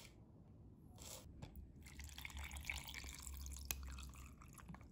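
Water being poured from a bottle into a plastic cup of instant coffee, a faint steady splashing and trickling for about two seconds in the second half, with one sharp click near the end.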